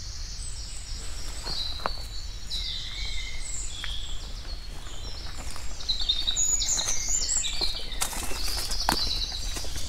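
Wild birds singing and chirping, with many short high notes throughout. A few short knocks sound in the second half.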